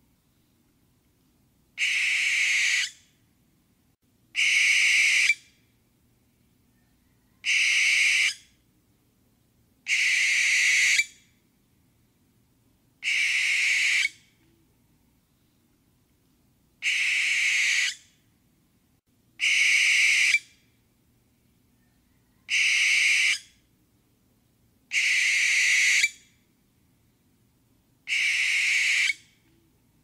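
Barn owl screeching: ten harsh, drawn-out screams about a second long each, repeated every two and a half to three and a half seconds.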